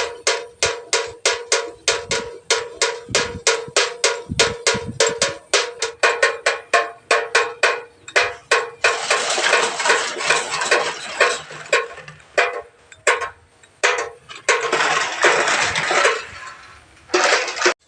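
Homemade windmill bird scarer turning, its beaters knocking a resonant piece at a steady three or four strokes a second, each knock ringing like a cowbell. About halfway through the knocks run together into a dense clatter, broken by a couple of short pauses near the end.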